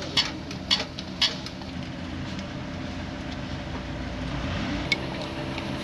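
A few sharp metallic clicks, about two a second, in the first second and a half, then a steady low mechanical hum.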